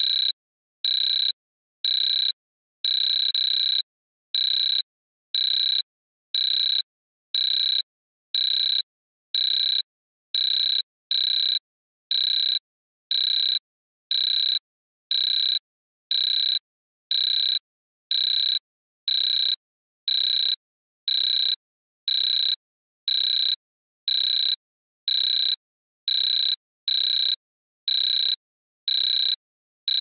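Digital alarm clock buzzer beeping: short, high-pitched electronic beeps repeating evenly, roughly one and a half a second, without a break.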